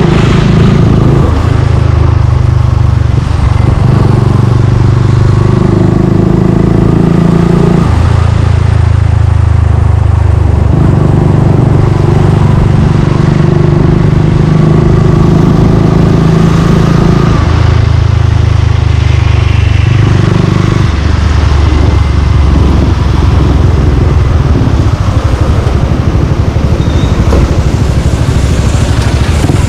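Suzuki Gixxer 155's single-cylinder engine running through an aftermarket exhaust while being ridden. Its note holds at one pitch for a few seconds at a time, then steps up or down as the throttle and gears change.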